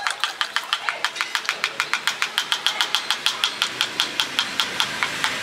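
Rapid, even mechanical ticking, about six sharp ticks a second.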